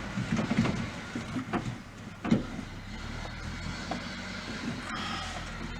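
Metal parts of a minivan's sliding-door latch and actuator assembly being worked loose by hand inside the door: scattered knocks and rattles, with one sharper knock a little past two seconds in, over a steady low hum.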